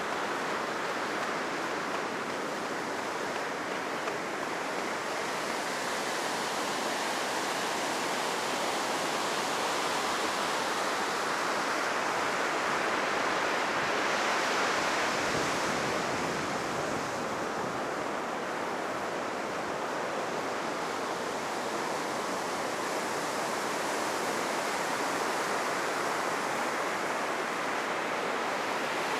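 Heavy surf, whipped up by a typhoon, breaking and washing up the beach: a steady rushing wash that swells to a peak about halfway through.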